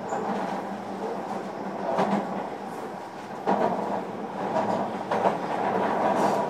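Running noise inside a JR Kyushu 305 series electric motor car: a steady rumble of steel wheels on rail under a low steady hum, with the knock of wheels over rail joints several times.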